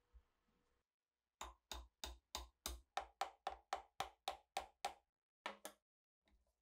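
A hammer tapping a thin wooden dowel through two wooden blocks held in a vise: a quick, even run of about thirteen sharp knocks, roughly four a second, then two more after a short pause.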